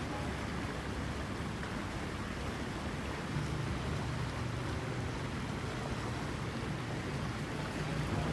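Steady rushing of a waterfall, with a low rumble that grows a little stronger about three and a half seconds in.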